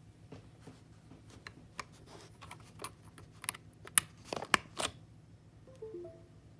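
Computer keyboard keys pressed one at a time in an irregular rhythm, each a sharp clack, the loudest ones bunched about four to five seconds in. Near the end come a few short, faint tones that step down in pitch and then jump up.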